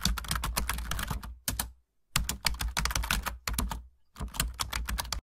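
Rapid computer-keyboard typing clicks in three quick runs with short pauses between them, the typing sound effect laid under text being typed out on screen.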